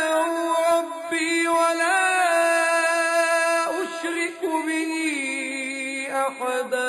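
A man reciting the Quran in a slow melodic chant, drawing out long held notes with ornamented turns of pitch.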